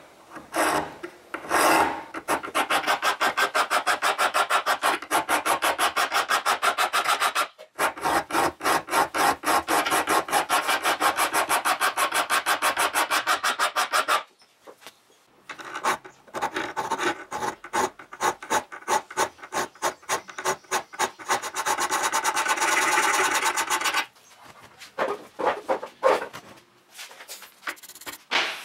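Hand file scraping across the bevel of a 5160 steel knife blade in fast, even back-and-forth strokes. It stops briefly about seven seconds in and goes quieter for a couple of seconds around the middle. Near the end the strokes become slower and scattered.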